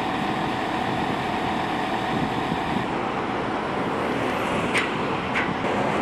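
Steady road traffic and engine noise with a constant hum underneath. Two brief high-pitched sounds come near the end.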